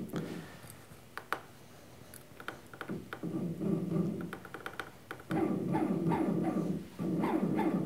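Stepper motor running in three spells from about three seconds in, driven by the electronic leadscrew controller as it follows a hand-turned rotary encoder. It gives a buzzing tone whose pitch wavers with the motor's speed, with a few faint clicks before it.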